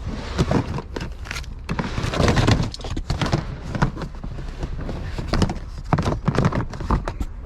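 Toys and storage containers being shifted and handled: a run of irregular knocks, clatters and rustling.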